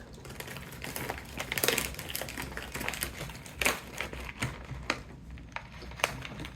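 Plastic snack bag crinkling and crackling as it is handled and opened, with irregular sharp crackles and a couple of louder bursts.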